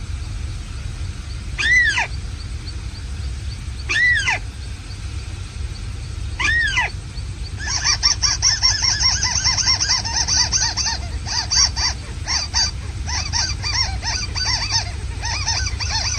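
Bird-trapping lure speaker playing a recorded bird call. There are four single rising-and-falling calls about two seconds apart. From about eight seconds in, a fast run of shorter calls follows, several a second, with a higher shrill note over them.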